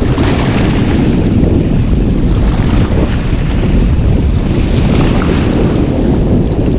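Steady wind rumbling and buffeting on the microphone, with sea waves washing beneath it.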